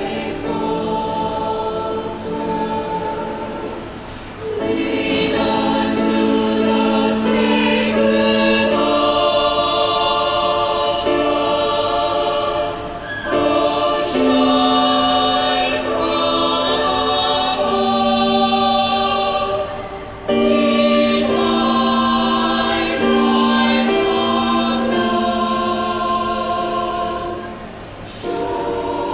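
A choir singing a Christmas song in long, sustained phrases with brief pauses between them.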